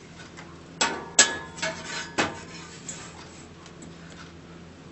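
A hard drive knocking and clattering against a desktop PC's sheet-steel case as it is set into the drive bay: a few sharp knocks in the first two seconds, the loudest with a brief metallic ring.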